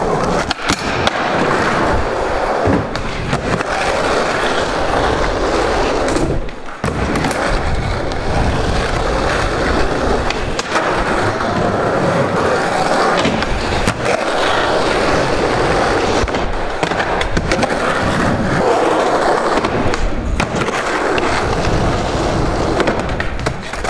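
Skateboard wheels rolling steadily on a smooth skatepark floor, broken now and then by sharp clacks of the board popping and landing.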